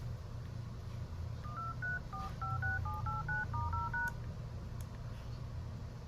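Phone keypad dial tones: a quick run of about twelve short two-tone beeps, stepping through the keys in order from 1 to #, over a steady low hum.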